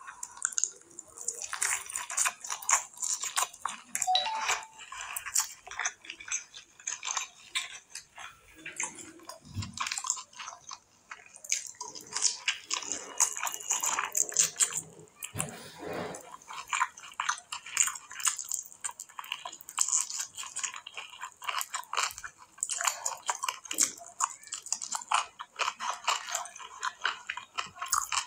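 Close-miked eating by hand: fingers squishing and mixing rice with mutton curry on a plate, and wet chewing, a dense irregular run of small clicks and smacks.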